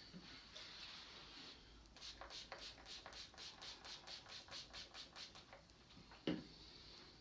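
Barber's hands massaging, a quick run of rhythmic rubbing strokes at about five a second for a few seconds, then a single sharp click near the end.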